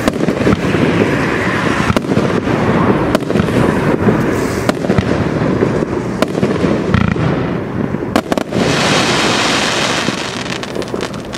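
36-shot consumer firework cake firing: a steady crackle and rumble of bursting stars, broken by sharp bangs every second or two. Near the end comes a loud hissing crackle lasting about a second and a half, then it dies down.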